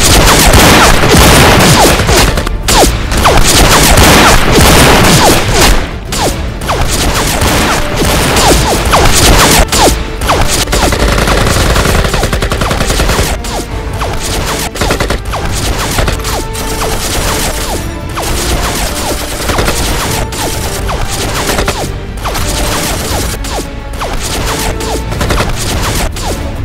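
Sustained gunfire: rapid volleys of shots close together, loudest in the first ten seconds, with background music coming through underneath in the second half.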